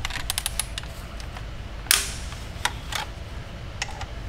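Milwaukee cordless ratchet with a Torx bit working an exhaust manifold bolt: a quick run of sharp clicks near the start, a single loud sharp crack about two seconds in, then a few scattered clicks.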